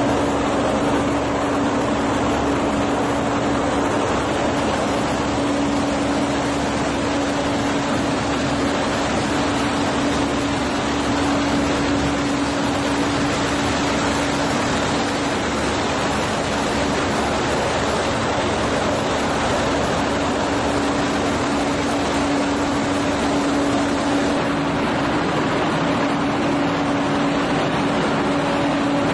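Glass tempering furnace machinery running: a steady, loud rushing noise with a constant low hum under it.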